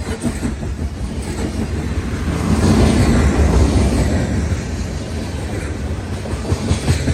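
Freight cars rolling past close by, open-top hopper cars and then tank cars, their steel wheels rumbling and clattering on the rails. The rumble swells for a couple of seconds near the middle, and quick wheel clicks come near the end.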